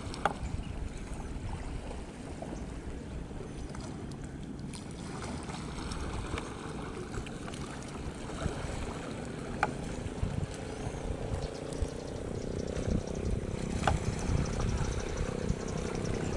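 Express Bahari fast passenger ferry running at speed offshore: a steady low rumble of its engines and the rush of its wake. A drone comes up in the second half, and there are a few sharp clicks.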